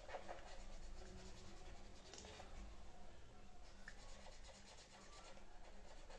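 A pen scratching back and forth on folded paper in quick, faint strokes, colouring it in black.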